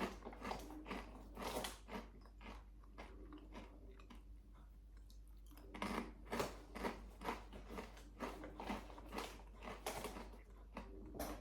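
A person crunching and chewing Volcano Takis rolled tortilla chips close to the microphone. The crunching is dense at first, thins out for a few seconds, then picks up again with a fresh run of crunches about halfway through.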